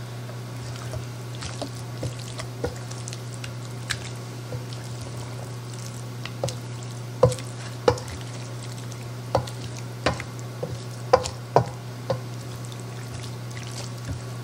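Spatula stirring a thick, wet chicken and rice casserole mixture in a stainless steel mixing bowl: soft squishing with irregular clicks and knocks of the spatula against the bowl, more frequent and louder in the second half. A steady low hum runs underneath.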